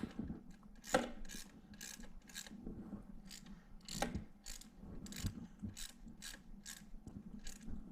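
A ratcheting hand tool clicking in short strokes, two or three sharp clicks a second, as a radiator-fan mounting screw is driven in and tightened.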